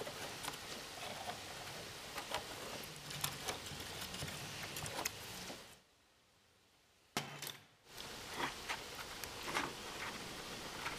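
Light handling sounds: scattered small clicks and taps as an aluminium gearbox housing and a sheet of gasket material are handled. Midway there is a brief drop to near silence, and the sound resumes abruptly. Near the end, scissors snip through the gasket sheet.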